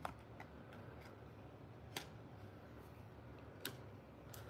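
Faint clicks and taps of a stack of cardboard trading cards being handled and set down, the clearest about two seconds in, over near silence.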